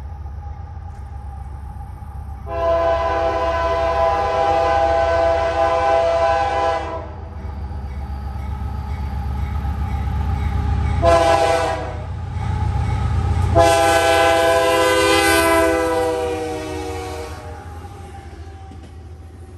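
Freight train's diesel locomotive approaching and passing with a deep rumble that builds and then eases, sounding its multi-note air horn: a long blast, a short one, then another long blast that sags slightly in pitch as the locomotive goes by. Freight cars roll past near the end.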